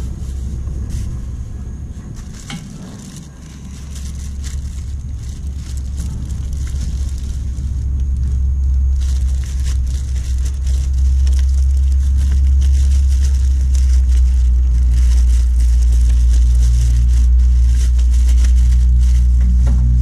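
Plastic wrap and bags crinkling and rustling as the packaging is pulled off a portable generator. Under it runs a loud, steady low rumble that grows louder about halfway through.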